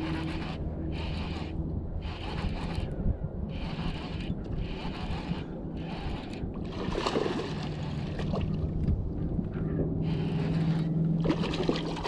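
Fishing reel being cranked to bring in a hooked bass, a rhythmic whirring that pulses with each turn of the handle. Near the end there is splashing as the bass thrashes at the surface close to the bank.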